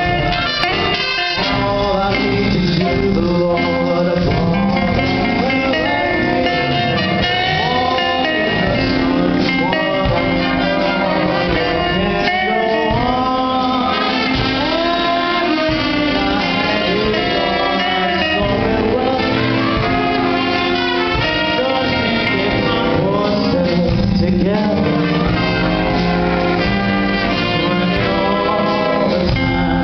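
Jazz-style music with brass and a singing voice, playing steadily.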